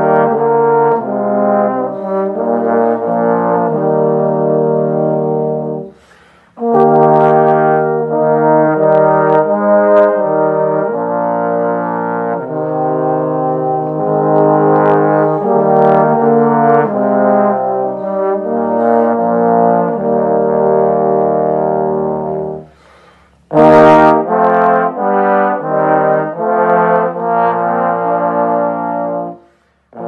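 Trombone quartet, all four parts played by one trombonist, playing a slow, peaceful holiday piece in close harmony. The chords break off for short pauses about six seconds in and again near twenty-three seconds, and a brief noise comes as the next phrase starts.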